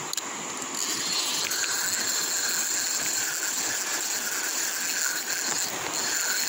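Steady rush of a shallow river's flowing water, with a steady high-pitched hiss that comes in about a second in and stays on.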